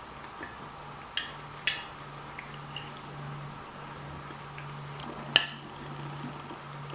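Knives and forks clinking and scraping on ceramic plates during a meal. There are three sharp clinks, about a second in, half a second later and again later on, over a faint steady low hum.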